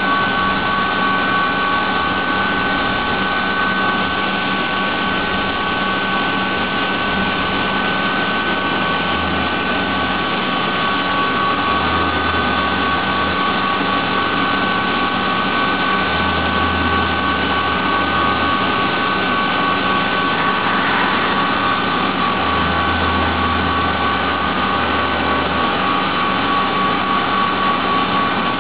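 CNC vertical mill cutting 4140 steel with a carbide endmill under flood coolant. It makes a steady spindle whine of two high tones over the hiss of coolant spray, and a low hum swells and fades several times.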